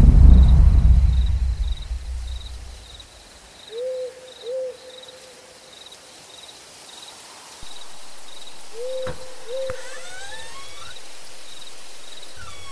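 Night forest ambience. A low rumble fades out over the first two seconds or so. An owl then hoots twice, and hoots twice again about five seconds later, over crickets chirping in a steady pulse about twice a second. A steady hiss comes in about halfway, and short bird chirps are heard near the end.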